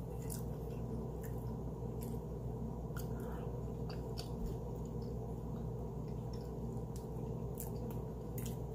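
Chewing a mouthful of boiled seafood-boil potato, with soft wet mouth clicks scattered through, over a steady low hum.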